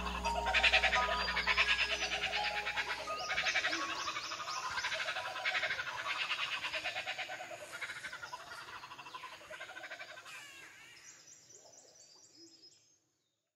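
A chorus of animal calls: a lower call repeating about once a second under rapid high trills, fading out to silence near the end. A low music drone underneath stops about three seconds in.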